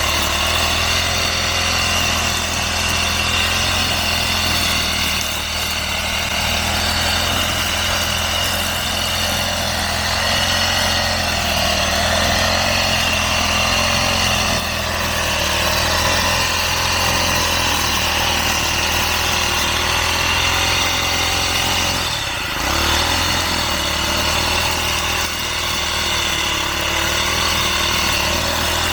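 Small engine of a motorised grass cutter running steadily at working speed, with one brief dip about two-thirds of the way through.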